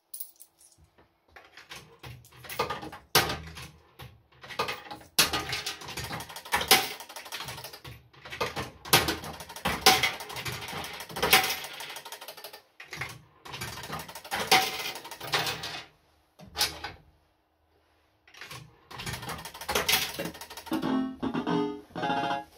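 Barcrest MPU4 'Stop the Clock' fruit machine in play: irregular clicking and clattering from its reels and mechanism, broken by short pauses, mixed with the machine's electronic sound effects. Near the end it plays a short run of beeping electronic tones.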